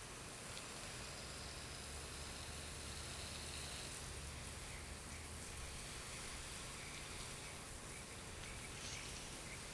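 Low-pressure water spray hissing and pattering steadily on a surface.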